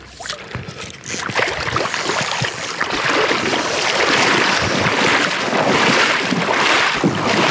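Rushing river water, a steady loud noise that swells up about a second in and then holds.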